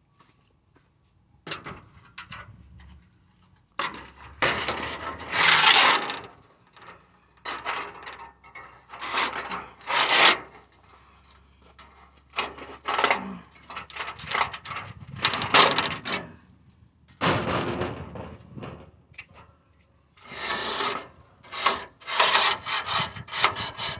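Irregular scraping and rubbing strokes, on and off, as swamp cooler pads are worked into the cooler's panel frames.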